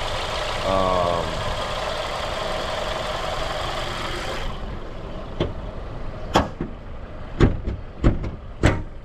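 Nissan car engine idling steadily, without the odd noise that the owner blames on a failing belt tensioner. About four and a half seconds in the steady running sound cuts off, followed by several sharp, irregular knocks.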